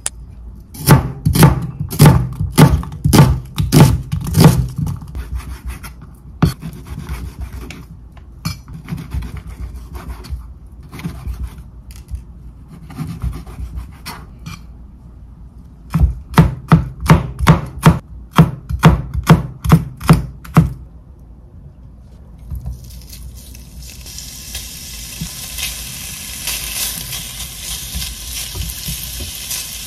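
Kitchen knife chopping on a cutting board in two quick runs of strokes, about three a second. Near the end, food starts sizzling in a hot frying pan, growing steadily louder.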